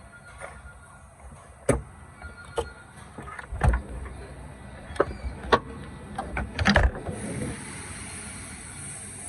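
Metal knocks and clanks as the loosened old right-side engine mount is worked free, about half a dozen sharp hits with the loudest a little past the middle. A steady high hiss comes in near the end.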